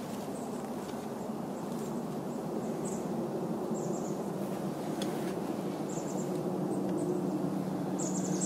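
Distant road traffic from a busy road: a steady low rumble that grows slowly louder, with a low hum coming up near the end. A few faint, high bird chirps are scattered over it.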